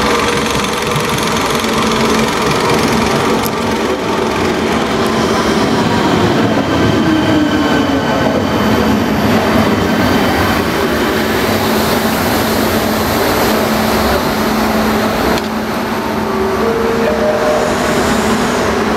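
A ČD class 471 CityElefant double-deck electric train runs into the platform and slows to a stop. Its wheels and running gear make a steady noise, with electric humming tones over it.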